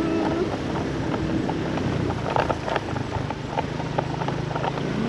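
Motorbike engine running steadily along a rough dirt track, with frequent short knocks and rattles as the bike rides over the ruts.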